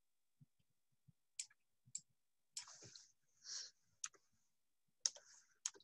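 A handful of faint, spaced-out clicks from a computer keyboard and mouse as a value is typed into a margin box.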